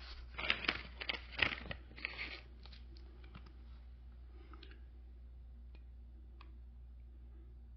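Wooden dowels being handled and fitted with glue into holes in pressed-board panels: a cluster of small crackling clicks for the first two and a half seconds, then only a few faint ticks over a low steady hum.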